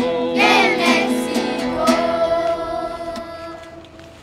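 Group of school children singing a German round (canon) with acoustic guitar. The voices end on one long held note that fades away near the end.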